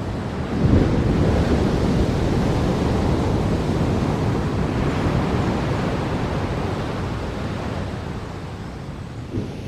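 Wind rumbling on the microphone as a low, rushing noise. It rises sharply in a gust about a second in, then slowly eases off.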